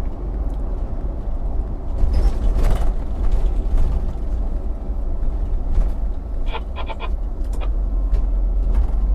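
City bus under way, heard from the driver's seat: a steady low engine and road rumble, with a brief rushing hiss about two and a half seconds in and a few quick rattling clicks near seven seconds.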